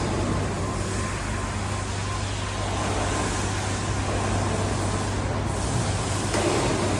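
Factory machinery running steadily, a constant low hum under an even machine noise, with no distinct strikes or clunks.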